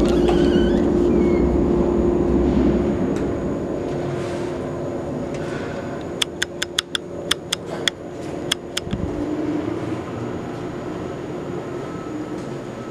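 Steady hum of elevator machinery with a constant low tone, fading over the first few seconds; then a quick run of about ten sharp clicks, footsteps on a hard stone floor.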